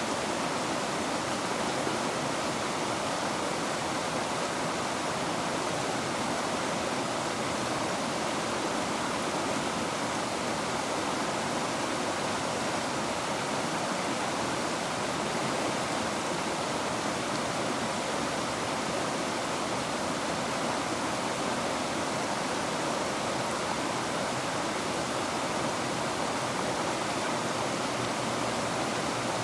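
River water running, a steady even rushing without pauses or changes.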